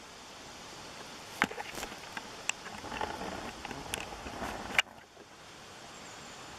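Rustling with a few sharp clicks and snaps, over a steady hiss of flowing brook water; the rustling stops abruptly about two-thirds of the way through.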